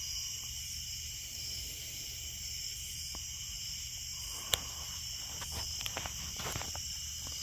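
Steady high-pitched chorus of night insects, with one sharp click about four and a half seconds in and a few faint ticks after it.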